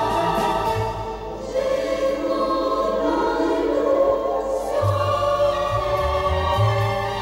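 A school choir singing long held notes over instrumental accompaniment.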